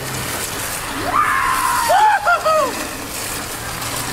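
Steady hiss of sliding through slushy snow, with a few short rising-and-falling yells from about a second in.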